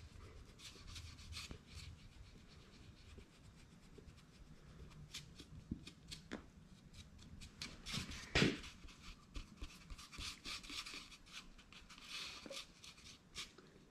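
Hands working and smoothing epoxy over a deer's skull: faint rubbing with scattered light clicks and one sharper knock a little past halfway.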